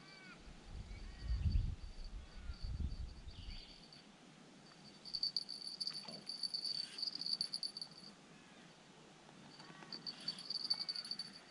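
Insects trilling in a high, pulsing buzz that comes and goes in spells, with a few faint short chirps. A low rumble runs through the first few seconds.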